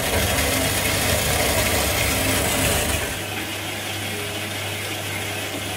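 Huvema 712 horizontal metal-cutting band saw running, its blade cutting through a thick round metal bar under flowing coolant: a steady motor hum under the hiss of the cut. The deepest part of the hum drops away about three seconds in.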